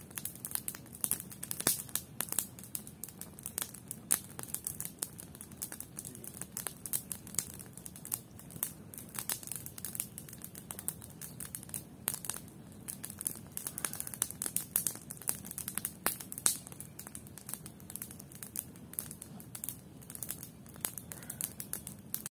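Wood campfire crackling: dense, irregular sharp pops and snaps from the burning logs over a steady low rush.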